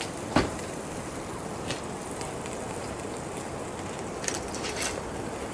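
Steady sizzling and crackling of skewers cooking over a tabletop charcoal grill, with a single knock about half a second in as a bottle is set down on the wooden table and a few light clicks later on.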